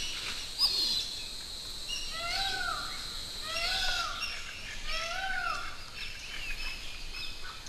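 Forest birdsong: three rising-and-falling calls about a second and a half apart, over scattered high chirping and twittering from other birds.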